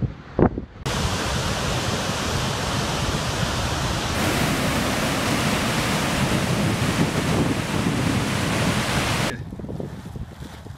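Roar of a waterfall, a steady loud rush of falling water, which grows brighter and harsher about four seconds in. It opens with a couple of wind thumps on the microphone and drops away to a much quieter background near the end.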